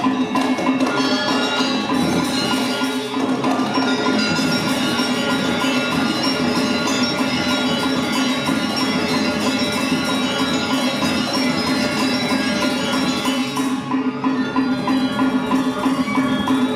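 Balinese gamelan playing dance accompaniment: bronze metallophones ringing with dense interlocking tones over a steady low tone, with drums and gongs.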